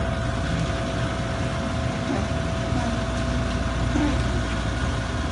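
An engine idling steadily: a low, even rumble with a constant hum.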